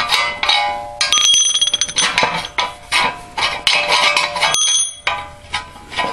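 Black iron pipe legs clanking against each other and the steel stove body as they are pulled off and handled: a quick series of metal knocks, several with a short bell-like ring.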